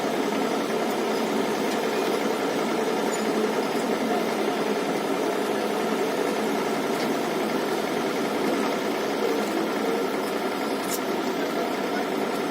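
Diesel engine of heavy construction machinery running steadily, with a knocking rumble and no change in speed.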